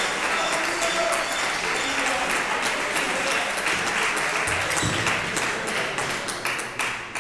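Crowd applauding, with voices mixed into the clapping; the applause dies away near the end.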